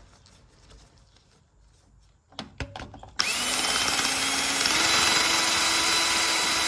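A few clicks and handling knocks, then about three seconds in an electric drill starts and runs steadily at speed with a high whine. It is knocking hard carbon buildup off the top of a piston.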